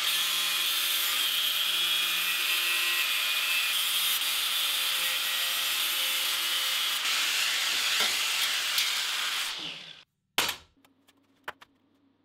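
Angle grinder with a cut-off disc cutting through steel plate along a scribed circle, a steady loud grinding that trails off and stops about ten seconds in. A single sharp knock follows just after.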